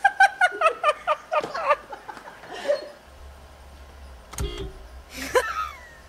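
A woman laughing in a quick run of high-pitched 'ha-ha' bursts, about five a second, for roughly the first two seconds. A single knock comes a little past the middle, followed by a short vocal sound.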